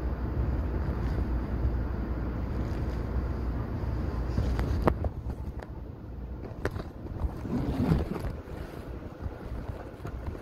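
Electric commuter train running, heard from inside the carriage: a steady low rumble of wheels on rail that drops off about five seconds in, followed by a few sharp clicks and rattles.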